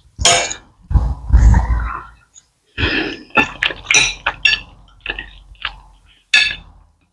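Metal knives and forks clinking and scraping on ceramic dinner plates as food is cut and eaten, in short irregular clicks. About a second in there is a louder low sound lasting about a second.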